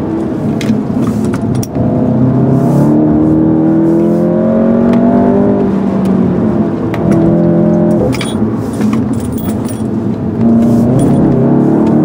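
2013 Volkswagen Golf GTI's turbocharged 2.0-litre four-cylinder engine heard from inside the cabin under load, revs rising and falling repeatedly through the bends, with a sudden shift in pitch about eight seconds in. Loose keys jangle in the cabin now and then.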